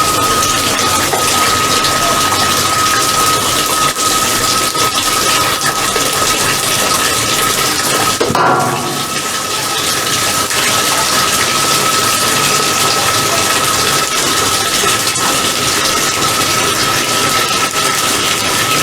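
Washing machine filling with water for a drum-cleaning cycle: a steady rush of water with a thin, constant high tone, briefly changing about eight and a half seconds in.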